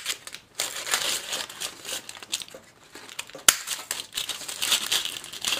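Aluminium foil crinkling as it is handled and cut with a craft paper punch, a way of keeping the punch's blade sharp. A sharp click about three and a half seconds in.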